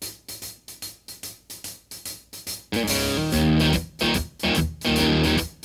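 Live band playing: a run of quick, choppy muted strokes about four a second, then about three seconds in the full band comes in loud with guitar, bass and drums, playing stop-start chords with short breaks.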